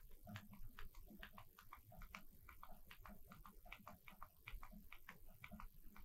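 Near silence: room tone with faint, irregular short ticks, several a second.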